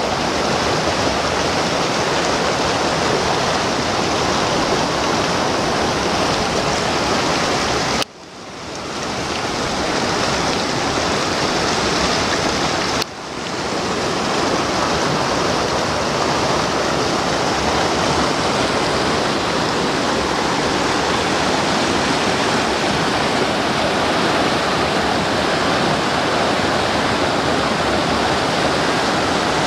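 Fast mountain creek rushing over boulders in whitewater rapids, a steady roar of water. The sound drops out suddenly twice and fades back in each time.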